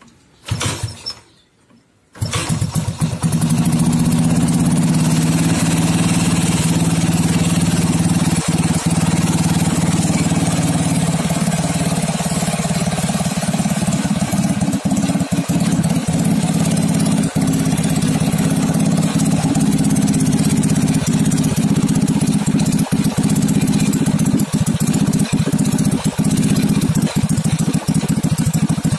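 Used Honda Supra Fit single-cylinder four-stroke motorcycle engine on a homemade go-kart being kick-started. A short burst comes from the first attempt about half a second in; the engine catches about two seconds in and then runs steadily.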